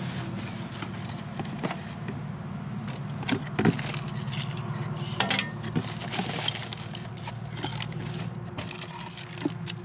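Unboxing by hand: a cardboard box is handled and a plastic bag of small metal lock hardware rattles and clinks, with scattered clicks and rustles. A steady low hum runs underneath.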